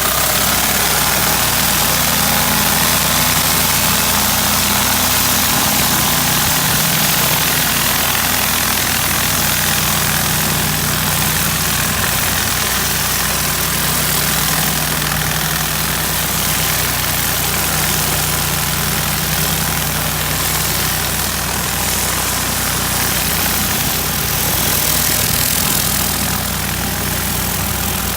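Pressure washer engine running steadily at a constant speed, with the hiss of high-pressure water spraying from a surface cleaner as it works over a concrete driveway.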